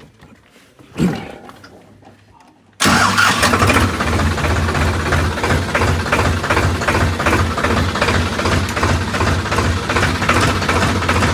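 A single thump about a second in, then a tractor's diesel engine starts abruptly and runs steadily with a pulsing low beat.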